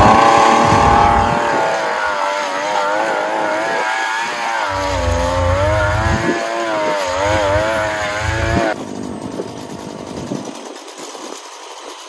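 Petrol earth auger's small engine running at high revs, its pitch wavering up and down as the bit bores a planting hole in the ground; the engine note drops away sharply about nine seconds in.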